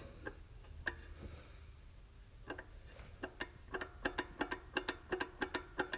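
Sharp metallic clicks from the piston and connecting rod of a Yamaha G1 golf cart's two-stroke engine as the crankshaft is rocked by hand: a few scattered clicks, then a quicker run of several a second from about halfway. The clicking is the knock of play in the connecting rod, which the owner puts down to slop at the wrist pin or down at the crank.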